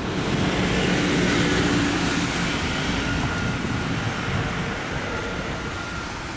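Road traffic going by: cars and a coach bus passing, with tyre and engine noise that swells and then slowly fades.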